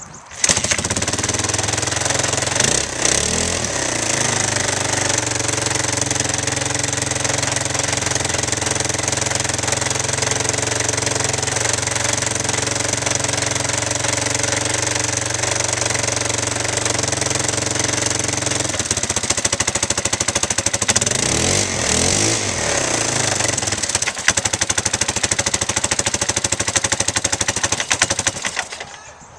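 Yamaha XT550's single-cylinder four-stroke engine idling steadily, revved briefly a few seconds in and again for several seconds past the middle, then cutting off near the end. It is running smoothly with its cracked carburetor intake boot replaced.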